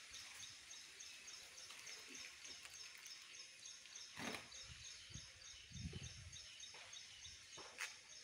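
Quiet outdoor ambience with faint, high chirping repeated evenly about four times a second throughout. A few soft thumps come about halfway and near the end, with a low rumble in between.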